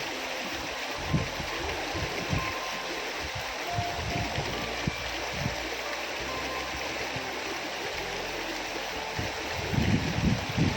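Small river flowing steadily with a constant rushing of water, with scattered low bumps, more of them near the end.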